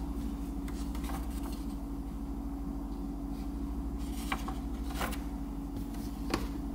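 Steady electrical hum in a kitchen, broken by a few soft rustles and clicks as a printed paper recipe sheet is handled.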